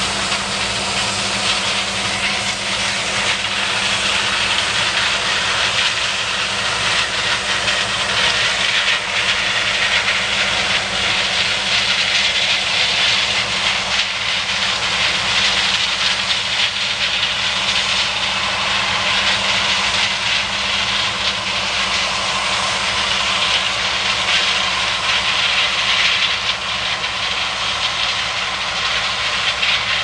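John Deere combine harvesting corn and unloading through its auger into a tractor-drawn grain cart running alongside: a loud, steady machinery noise with a hissing top and a low hum, no breaks.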